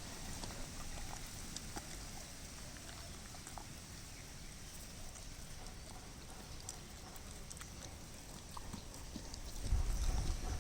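Yellow Labrador chewing a strawberry: scattered smacking and clicking mouth sounds over a low rumble. The rumble gets louder near the end.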